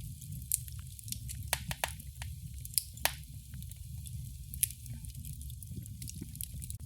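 Wood fire in a fireplace crackling, with irregular sharp pops and snaps over a low steady rumble of the burning.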